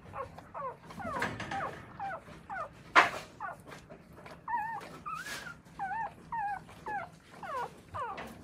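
Newborn Akita puppies squeaking and whimpering over and over, short high calls that bend in pitch, two or three a second, as the mother licks and nuzzles them. A single sharp click about three seconds in is the loudest sound.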